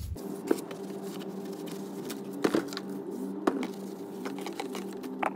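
A rag rubbing over the face of a new brake disc to wipe off its anti-rust coating with brake cleaner, with a few light knocks as the disc is handled. A steady hum runs underneath.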